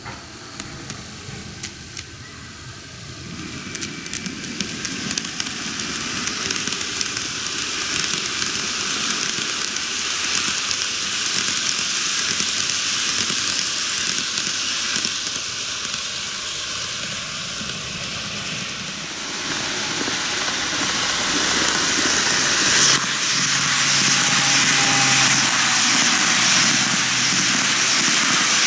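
TOMIX N-gauge model trains, an Odakyu 4000 series and 50000 series VSE, running on cant track. The wheels make a steady rattle and crackle on the rails that grows louder as a train nears, and a low motor hum joins about two-thirds of the way through.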